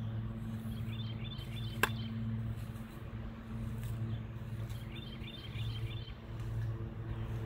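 A steady low mechanical hum, with a small bird's quick high chirps twice and a single sharp click just before two seconds in.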